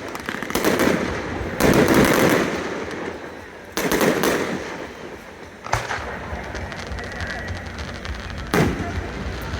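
Aerial fireworks shells bursting one after another, each sharp bang trailing into a rolling echo, with bursts of rapid crackling between them.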